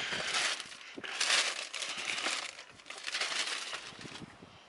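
Packaging being handled and crinkled, rustling in several irregular bursts.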